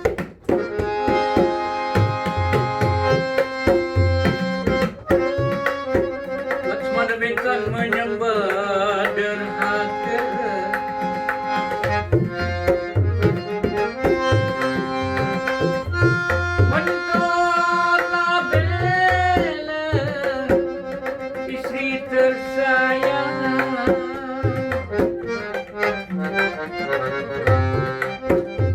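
Instrumental interlude of a Malay ghazal song: tabla drum strokes under a melody on a reed keyboard instrument, with no singing.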